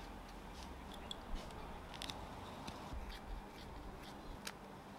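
Carving knife paring thin slices from a wooden fork made of nectarine wood: short, sharp cutting snicks at irregular intervals, a few of them louder than the rest.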